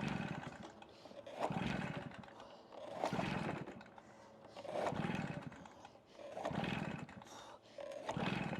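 Stihl BR380 backpack blower's two-stroke engine being cranked by its pull-start cord six times, about every second and a half, each pull a short whirring rasp with no firing: the hard-starting blower will not catch.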